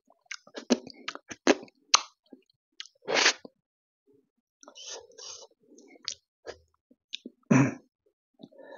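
Close-miked eating sounds: wet lip smacks and tongue clicks from chewing and licking curry off the fingers. They come as scattered sharp smacks with short pauses between them, with a louder, longer smack about three seconds in and again near the end.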